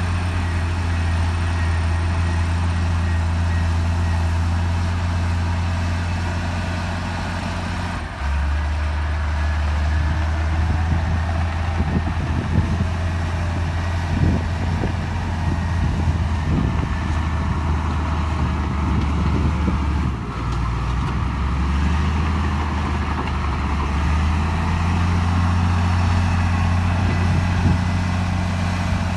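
Heavy diesel engine of a bulldozer working at a steady, loud note. About eight seconds in, its pitch drops as it takes load, then it climbs back up near the end, with scattered clanks and rattles in the middle.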